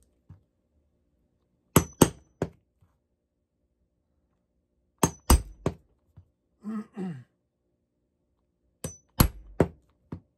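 A hammer striking a metal brogue punch to punch decorative holes in leather: sharp clinking taps in quick groups of three to five, a few seconds apart. A short low vocal sound, falling in pitch, comes about seven seconds in.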